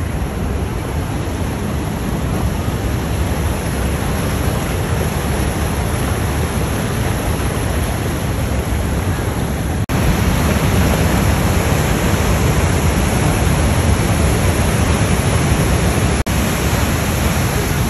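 Rushing water of Niagara Falls and its rapids: a steady, loud, even rush of noise. It cuts out for an instant twice, about ten and sixteen seconds in, and is a little louder after the first break.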